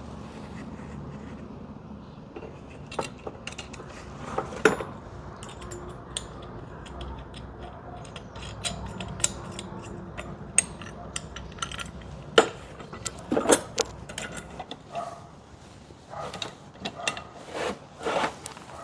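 Irregular metallic clicks and clinks of hand tools and bolts being worked as an awning bracket is fastened back on, over a low steady hum that fades out about two-thirds of the way through.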